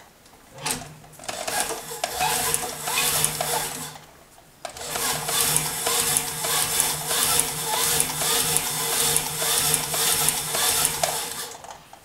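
Claes open-arm industrial sewing machine stitching through a boot's leather and zipper tape, with the steady hum and quick rhythmic needle strokes of a double-stitched seam. It runs in two stretches: a short run, a brief stop about four seconds in, then a longer steady run that stops near the end.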